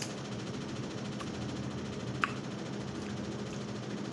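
Eating sounds of someone picking and sucking meat off a turkey tail with the fingers: two short sharp mouth smacks, one about a second in and a louder one past two seconds, over a steady low hum.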